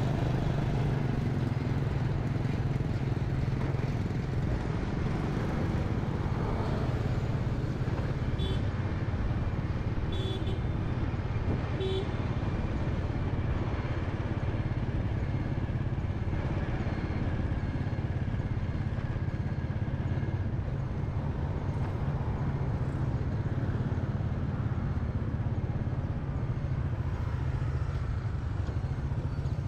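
A motor scooter being ridden in traffic, with a steady engine and road rumble throughout. A few short horn toots sound between about eight and twelve seconds in.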